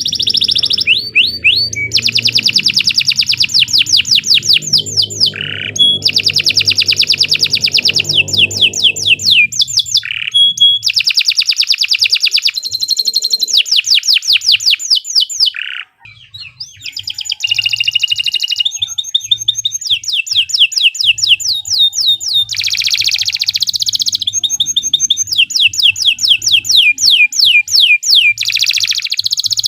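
Domestic canary singing long, fast rolling trills: runs of rapidly repeated high notes, phrase after phrase, with a brief break about halfway through.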